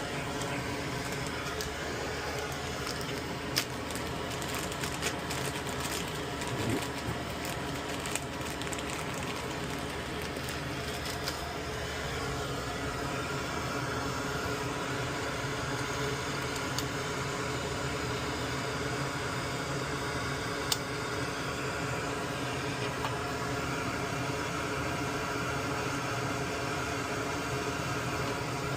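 Steady electric hum of a small fan or motor running, with a few light clicks, several close together in the first few seconds and one near the middle.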